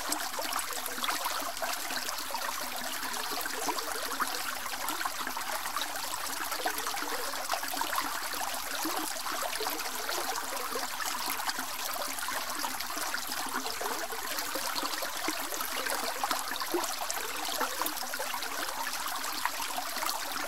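Small mountain stream of snowmelt water running and burbling, a steady rush of water with fine splashing detail.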